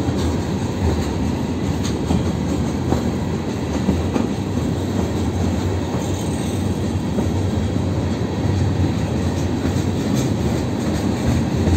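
Steel gondola cars of a freight train rolling past: a steady rumble of wheels on rail, with occasional clicks as the wheels cross rail joints.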